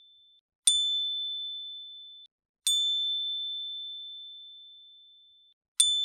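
Metal metallophone plate, computationally shaped with elliptical holes and tuned to A7, struck three times. Each strike rings one clear high note that slowly fades.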